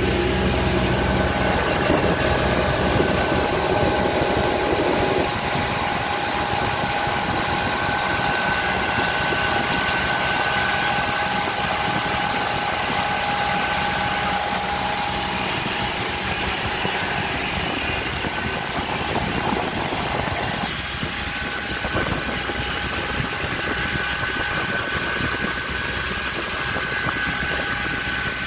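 Boat's outboard motor running steadily at cruising speed over a constant rush of wind and water. Its note shifts a little about two-thirds of the way through.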